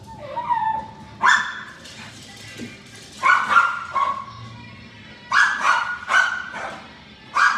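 Dog barking repeatedly: short, sharp barks that come singly or in quick pairs, with a brief whine near the start.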